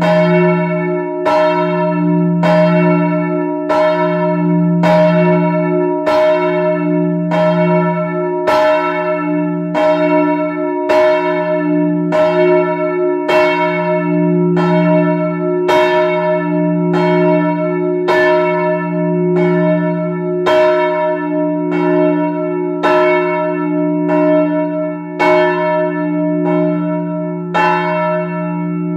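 The noon bell, a single swinging church bell, rung alone in the belfry. Its clapper strikes about once a second, and each stroke rings on over a steady hum that never dies away between strokes.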